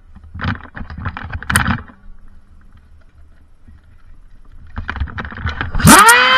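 Scattered knocks and rustles of handling and movement, then near the end a brushless flywheel Nerf blaster revving: its motors spin up in a fraction of a second with a rising whine and hold at a steady high pitch, ready to fire.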